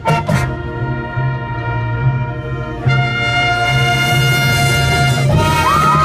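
Marching band brass section playing a long held chord after a brief percussion hit, swelling louder about three seconds in. Near the end, high whistles glide up and down over it.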